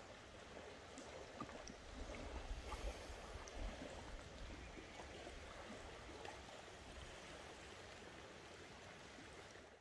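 Faint, steady rushing of running water, with some low rumbling bumps between about two and four seconds in.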